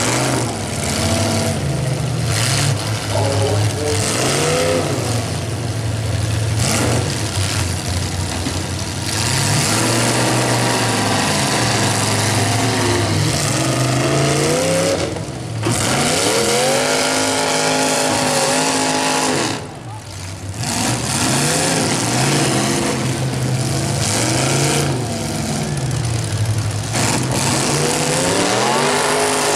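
Demolition derby cars' engines revving hard, their pitch climbing and falling every second or two as they ram and push. The sound drops briefly twice, about halfway through and again a few seconds later.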